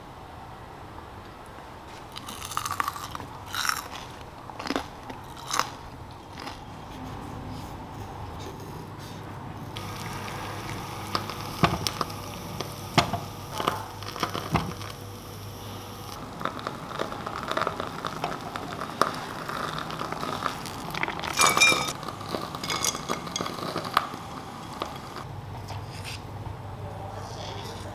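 Four sharp crunches of fried potato snacks being bitten in the first few seconds. Then whole potatoes go into a pot of water with splashes and knocks. Then a knife scrapes and peels the skin off cooked potatoes, in repeated scrapes.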